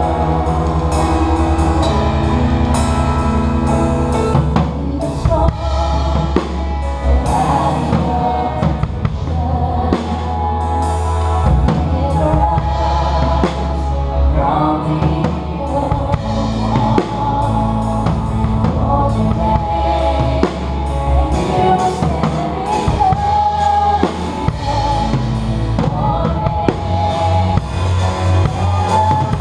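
Live worship song with a drum kit playing a steady beat, including cymbals, under singing voices and sustained low bass notes.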